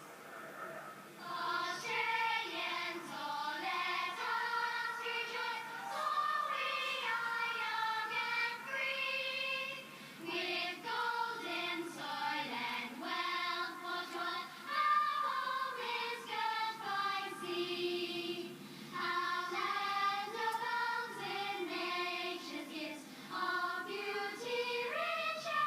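A choir of schoolgirls singing an anthem, their voices entering about a second in and moving through long held notes.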